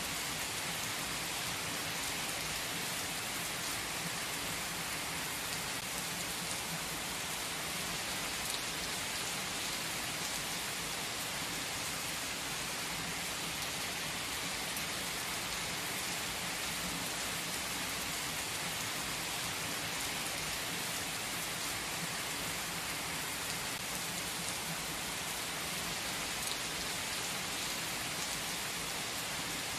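Heavy rain pouring down on an asphalt car park, a steady, unbroken hiss of drops splashing on the pavement.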